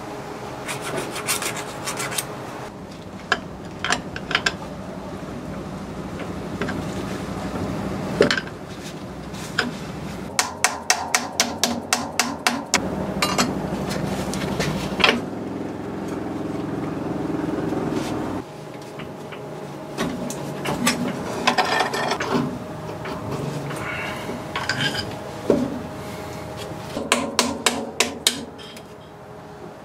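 Hand tools working on the steel gear and housing of a milling machine's quill feed gearbox as the gear is freed from its shaft after the circlip. There is metal-on-metal scraping and prying throughout. About ten seconds in comes a run of roughly eight quick sharp taps, about three a second, and a few more clusters of taps come near the end.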